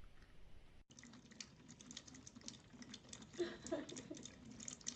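Faint, irregular clicking and tapping, with a few short, soft pitched sounds in the second half.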